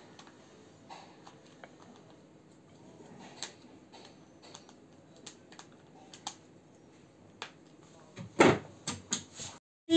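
Scattered light clicks and knocks of a car's repaired horn stalk being handled and fitted back on the steering column, with a few louder knocks near the end.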